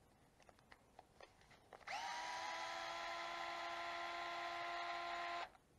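Cordless electric screwdriver spinning out one of the four screws that hold an RC truck's differential case together, a steady motor whine of about three and a half seconds that rises briefly as it spins up and stops abruptly. A few light handling clicks come before it.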